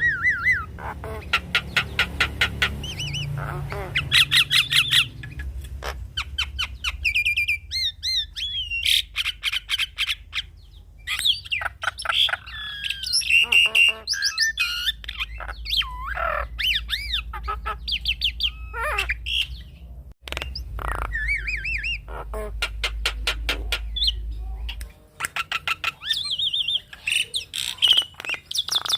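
Javan myna (jalak kebo) singing a varied song: fast rattling runs of clicks, harsh calls and wavering, pitch-bending whistles in short phrases. A steady low hum runs underneath and stops about 25 seconds in.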